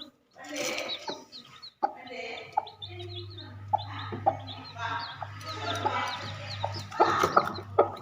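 Chickens: chicks peeping in many short, high, falling notes, with clucking among them. A low steady hum joins about three seconds in.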